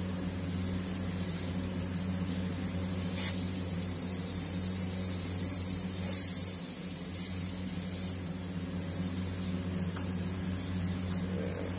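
Gravity-feed airbrush spraying paint, a hiss that flares up in several short bursts as the trigger is worked, over a steady low hum.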